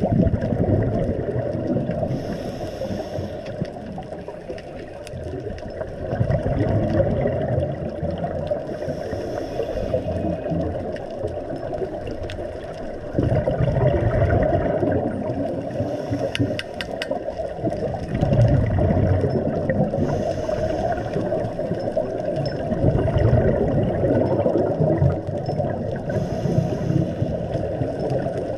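Underwater ambience heard through a camera housing: a steady low rumble of moving water, broken about four times, several seconds apart, by the bubbling gurgle of a scuba regulator's exhaled air.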